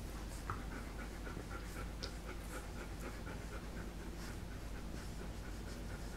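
Three-week-old puppies nursing on their mother: soft, rhythmic suckling at about four strokes a second, fading after the first few seconds, with the dogs breathing.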